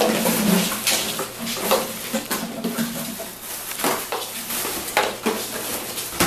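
Empty plastic water bottles clattering and crinkling as puppies knock and push them around a cardboard box, with irregular hollow knocks against the cardboard.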